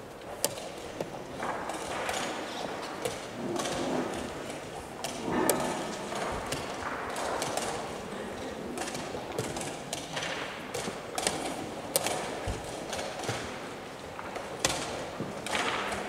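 Scattered sharp taps of wooden chess pieces set down on a wooden board and a chess clock's button pressed, over background voices.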